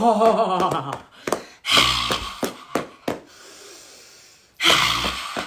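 A woman's voice: a loud sustained vocal "ahh" in the first second, then forceful breathy exhalations and a few sharp slaps of hands on her body, as in qigong tapping with cleansing out-breaths. A short lull comes about three seconds in, then another hard exhale near the end.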